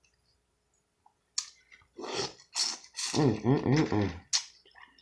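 Mouth sounds of someone eating seafood: wet sucking and smacking sounds, with a wordless wavering hum of enjoyment in the middle.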